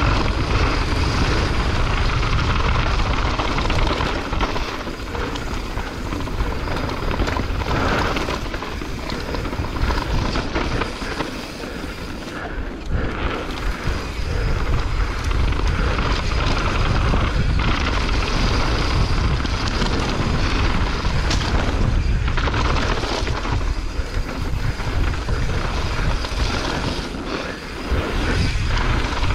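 Wind buffeting a GoPro Hero 8's microphone as a mountain bike runs fast down a dirt trail, with tyres rolling over dirt and loose stones and the bike rattling over bumps.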